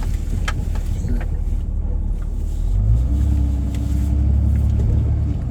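Vehicle engine running while driving, heard from inside the cab as a steady low rumble. About three seconds in the engine note gets louder and a steady hum comes in as it works harder.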